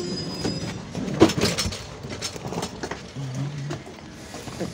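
Train standing at a station platform just after halting: a low rumble with scattered clanks and knocks, the sharpest about a second in and again near the end, and a brief low hum about three seconds in.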